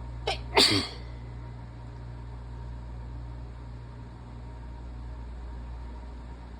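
A woman's single loud sneeze about half a second in, with a short sound just before it, over a steady low hum.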